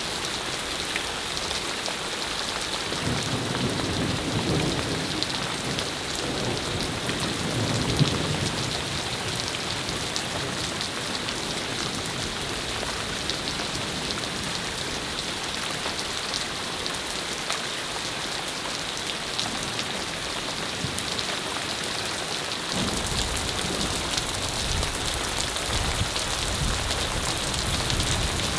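Steady downpour of rain mixed with hail, the haze of falling water speckled with fine ticks of stones striking. Low rolls of thunder rumble about three and six seconds in.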